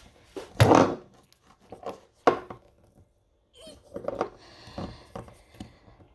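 A screwdriver knocking and scraping against a jammed plastic seasoning-grinder lid as it is pried and forced: a loud knock about half a second in, a sharp click a little after two seconds, then smaller knocks and scrapes.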